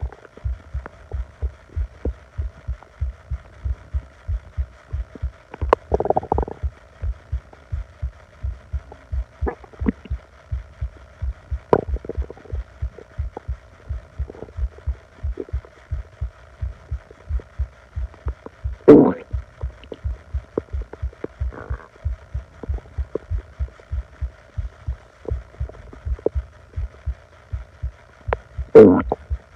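An upset stomach growling, heard up close at the belly: a steady run of soft low thumps, about two to three a second, with occasional gurgles. The loudest gurgles come about 6 seconds in, about 19 seconds in, and near the end. A faint steady hum runs underneath.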